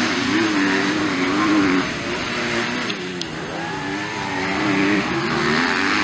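250cc MX2 motocross bikes racing past, their engines revving up and falling back repeatedly as the riders work the throttle through the turns, with a brief drop in engine noise about halfway through.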